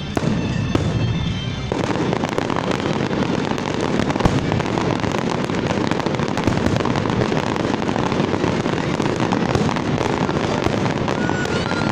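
Fireworks display going off continuously: a dense, rapid crackle of bangs and pops from many aerial shells and low fountains bursting at once, with a heavier thump about four seconds in.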